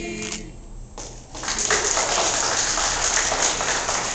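The choir's last held chord stops about half a second in. After a second of near quiet, audience applause breaks out and carries on loudly.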